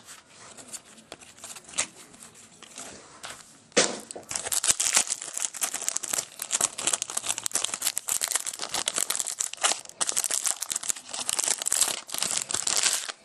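Foil trading-card pack wrapper being torn open and crinkled by hand: soft handling noises at first, then continuous crinkling and crackling from about four seconds in.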